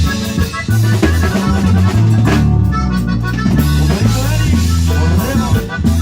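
Live norteño band playing an instrumental stretch with no singing, drum kit and bass guitar to the fore.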